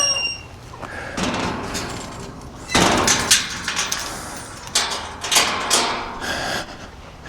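Irregular knocks, scrapes and rustling, with the loudest thump about three seconds in and a cluster of sharper knocks near five to six seconds.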